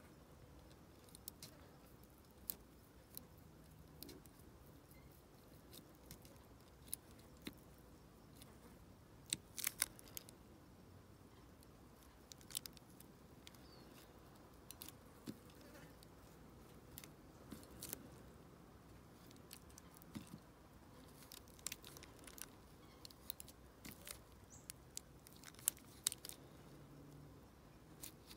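Small irregular metal clicks and taps as a tool works inside a brass dimple lock, with a few sharper clusters of clicks about ten seconds in and again near the end.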